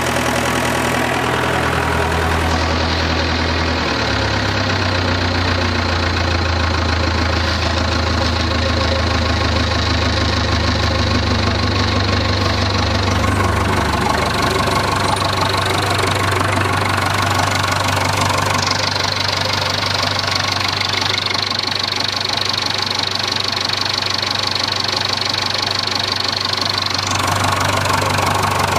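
Massey Ferguson 590 Turbo tractor's four-cylinder diesel engine running steadily at idle, still warming up after a cold start at about −5 °C. Its speed rises a little about four seconds in.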